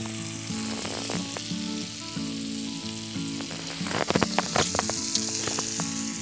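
Fish frying in oil: a steady sizzle throughout, with faint background music underneath. A cluster of sharp crackling clicks comes about four seconds in, as someone moves through dry brush.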